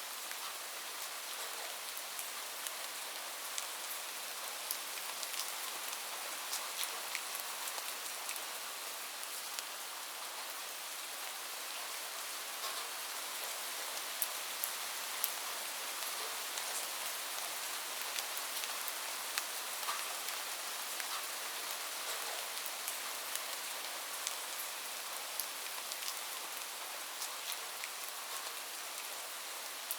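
Steady rain falling on a hard surface, a constant hiss with many distinct drops pattering on top.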